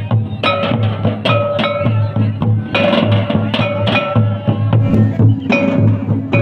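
Santali dance drumming: a large kettle drum and stick-beaten drums played in a steady rhythm of sharp strokes about two to three a second, each stroke ringing briefly, over a deep booming drum underneath.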